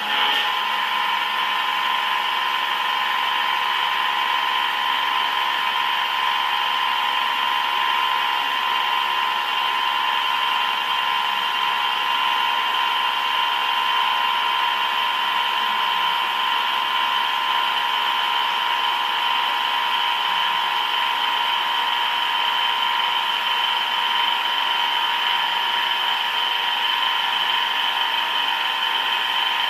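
Machine tool running with a steady high-pitched whine that starts abruptly and holds an even pitch throughout.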